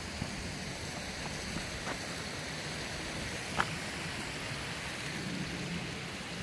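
Steady open-air rushing noise, like wind on the microphone, with a few faint clicks; the clearest comes about three and a half seconds in.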